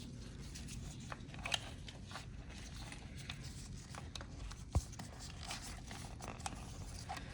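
Hands handling the electric bike's plastic wiring harness and connectors: scattered faint rustles and small clicks, with one sharper click a little under five seconds in, over a low steady hum.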